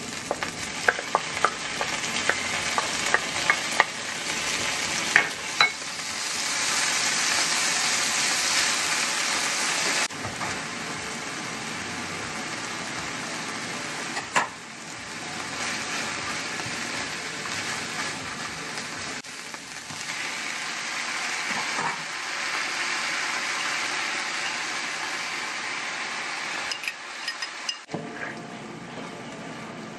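Stir-frying in a nonstick frying pan: pork belly, kimchi, then bean sprouts and udon sizzling in oil while a wooden spatula scrapes and turns them. Sharp clicks of the spatula against the pan come in the first few seconds.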